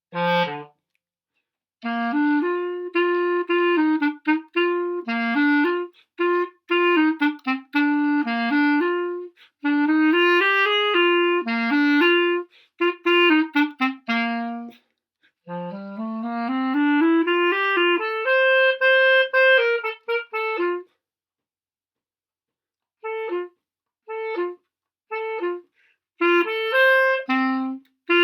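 Solo clarinet playing a brisk tune: quick runs of notes, a rising run into a held note, then after a rest of about two seconds a few short, detached notes before the melody resumes.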